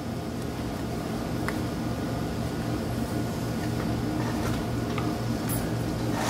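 A steady low hum with a slight even pulsing to it, and a few faint soft taps.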